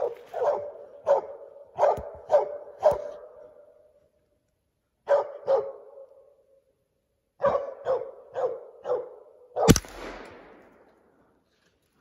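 Squirrel dog barking treed at the base of a tree holding a squirrel: three runs of short, even barks with brief pauses between them. Near the end comes a single gunshot at the squirrel, the loudest sound, with a trailing echo.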